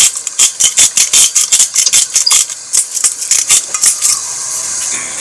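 Hand-twisted pink rock salt grinder grinding salt in a quick run of gritty clicks, about five a second, which stop about four seconds in; a steady hiss follows.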